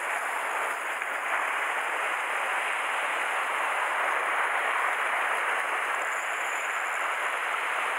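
Sea waves washing and foaming over shore rocks, a steady rush of surf.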